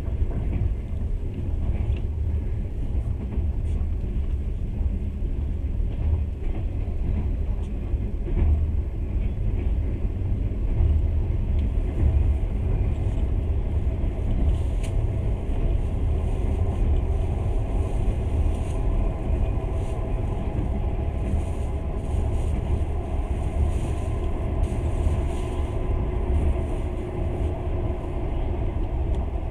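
Passenger train running at speed, heard from inside the carriage: a steady low rumble of the car and its wheels on the rails, with a faint steady whine joining about halfway through.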